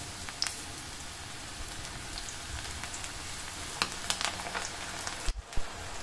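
Onion pakoda batter deep-frying in hot oil: a steady sizzling hiss with scattered crackles and pops as handfuls of the onion mix are dropped in. The sound cuts out for a moment near the end.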